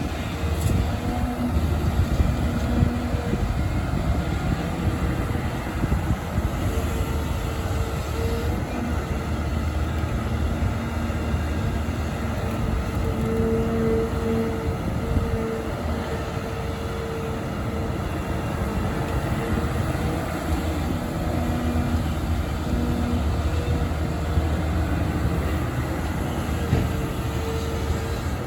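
Volvo EC300E excavator's diesel engine and hydraulics working steadily under load, with a low rumble and a mid-pitched whine that comes and goes.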